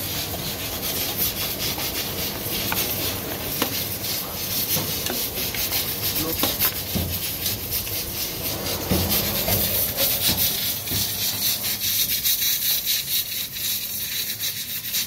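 Mutton karahi curry sizzling and bubbling hard in a steel karahi over a gas flame, with a metal spatula scraping and clinking against the pan.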